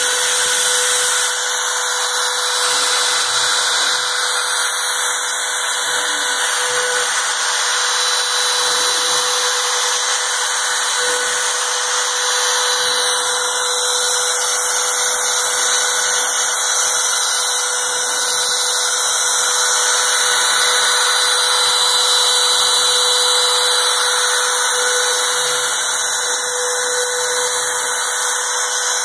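CNC router spindle running steadily as it cuts a board, a constant high whine over dense hiss.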